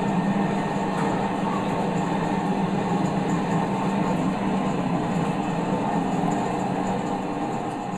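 Motor-driven corn mill running steadily with a low mechanical hum, beginning to fade near the end.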